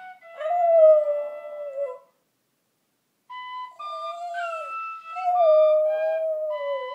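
Border terrier howling along to a penny whistle: long wavering howls under the whistle's steady, changing notes. The sound cuts out completely about two seconds in, then the whistle starts again a second later and the dog joins back in with longer howls.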